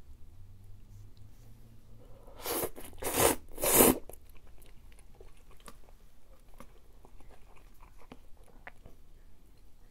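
A person slurping instant cup noodles: three loud slurps in quick succession about two and a half seconds in. Quieter chewing and small clicks follow.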